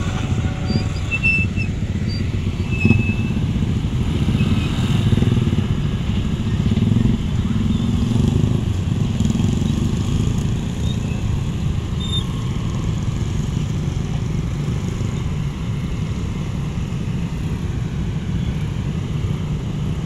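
Many motor scooter engines idling and moving off together: a steady low drone of small engines.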